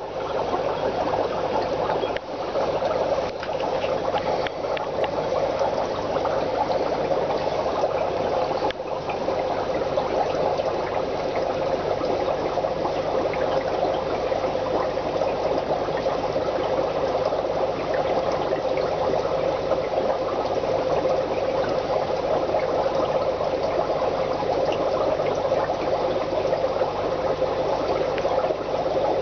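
Steady churn of running water in an aquarium, with a brief dip about two seconds in and a faint knock near nine seconds.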